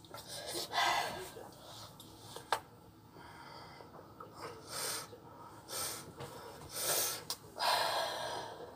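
A person breathing and sniffing: several short, noisy breaths, about a second in and then again from about five seconds in to near the end.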